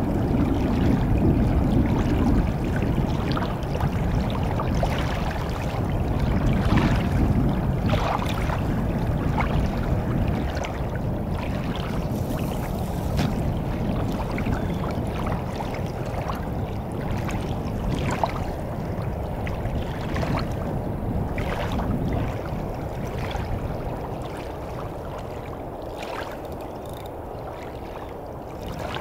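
Shallow water splashing and lapping around a wading man's legs, with scattered short splashes over a steady low rumble that eases off near the end.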